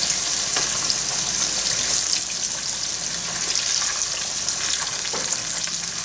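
Alligator ribs deep-frying in about 3/4 inch of vegetable oil at 350 degrees: a steady high sizzle, calmed down a little now that the ribs are golden brown and done. A few light clicks come from the metal tongs as pieces are lifted out of the oil.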